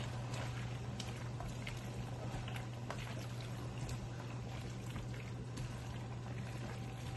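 A pot of vegetables and chicken in broth coming to the boil, bubbling with scattered small pops, over a steady low hum.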